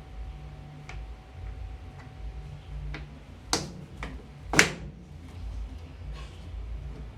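Clicks from a washing machine being switched on and set running: a few light ticks, then two sharp clicks about a second apart, the second the loudest, over a low hum.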